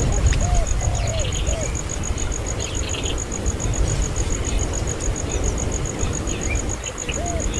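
Insect, likely a cricket, chirping in a fast, even high-pitched pulse that runs steadily, with faint short bird chirps scattered over it and a low rumble underneath.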